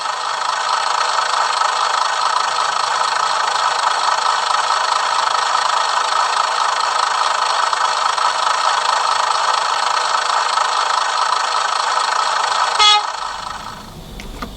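A Class 121 diesel railcar sound recording played by a model's sound decoder through its small speaker: steady engine running noise that cuts off abruptly about 13 seconds in.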